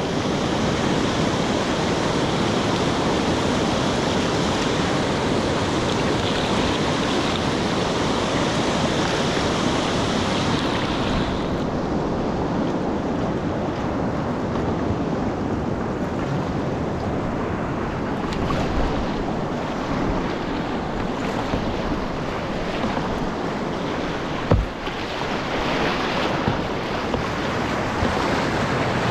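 Whitewater river rapids rushing and churning around a kayak, with wind buffeting the microphone. The high hiss of the rapid eases about eleven seconds in as the kayak runs out into calmer water, leaving the splashes of paddle strokes and a single knock near the end.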